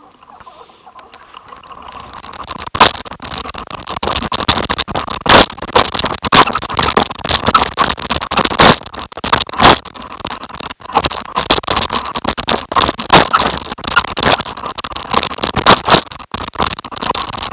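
Tyres rolling and scraping over a rough dirt and stone trail on a fast downhill descent, with frequent sharp knocks and rattles as the ride jolts over bumps.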